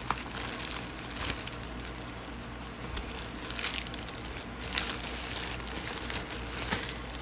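Clear plastic bag crinkling irregularly as skeins of yarn are handled and pulled out of it.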